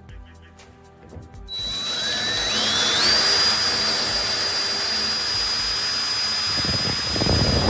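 DeWalt 20V Max cordless drill running in its first, low-speed gear. About a second and a half in, the motor starts with a whine that rises for about a second and a half, then holds steady.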